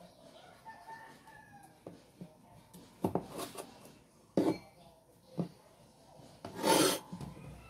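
Kitchen knife cutting tomatoes on a plastic cutting board: a few separate knocks of the blade, then a louder scrape across the board near the end.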